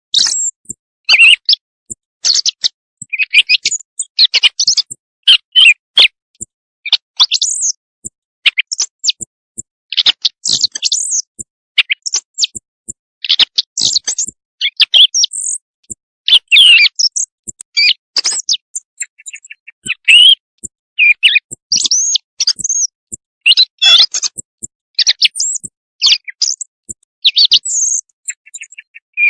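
Recorded bird calls played as a night hunting lure: loud, short, high chirps and sweeping notes in quick irregular clusters, several a second.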